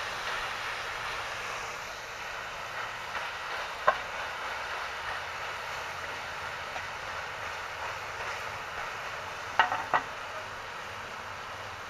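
Chopped meat sizzling as it is stir-fried dry in a wok, a steady hiss. A spatula knocks against the wok once about four seconds in and a few times near the end.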